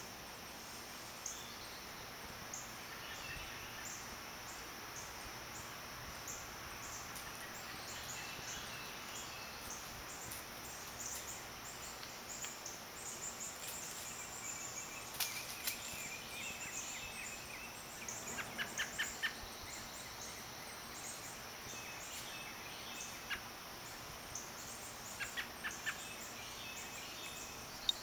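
Quiet outdoor ambience: a steady hiss with scattered short bird chirps, including quick runs of four or five short notes about two-thirds of the way in and again near the end. Two sharp clicks a little past the middle.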